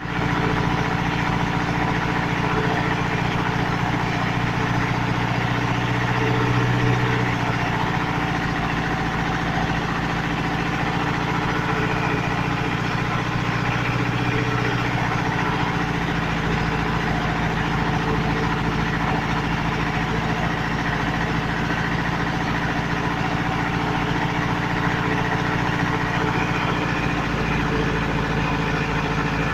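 Mitsubishi L300 car engine running steadily as the power unit of a fish-feed pellet machine, with a slight swell about six seconds in.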